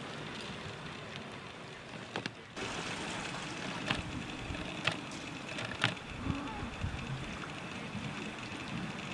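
Steady outdoor noise of wind and water at the shore. The noise dips briefly about two and a half seconds in, and three or four sharp clicks follow about a second apart.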